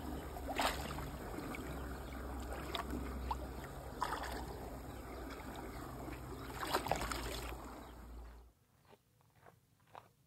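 Water sloshing and splashing around a carp held in a landing net in shallow water, with several sharp splashes over a steady low rumble. About eight seconds in the sound drops off suddenly to a few faint ticks.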